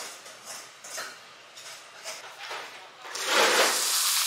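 Water poured from a metal kettle into a hot stone pot (dolsot) of cooked rice to make scorched rice, sizzling loudly against the hot stone from about three seconds in.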